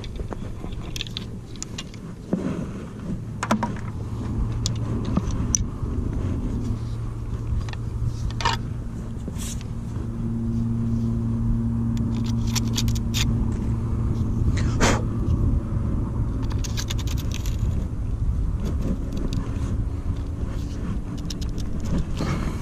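A steady low rumble with an engine-like hum running through it for much of the time, and scattered sharp clicks and scrapes of fishing rod and reel being handled.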